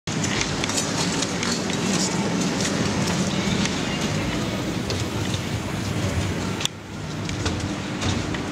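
Steady rumble and low hum of an underground rail station, with scattered clicks and knocks such as footsteps. About seven seconds in, a sharp click is followed by a sudden drop in level that then builds back up.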